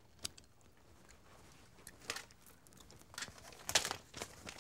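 Light handling noises over quiet room tone: several soft clicks and rustles, as of objects and packaging being moved about behind a shop counter.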